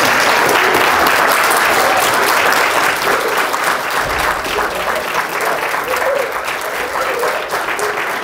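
An audience of children and adults applauding, many hands clapping at once. The clapping is dense at first and thins into more separate claps after a few seconds.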